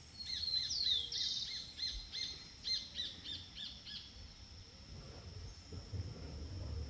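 A bird singing: a high downward sweep and a short buzzy trill, then a run of repeated arched notes, about three a second, that stops about four seconds in. A faint low rumble follows.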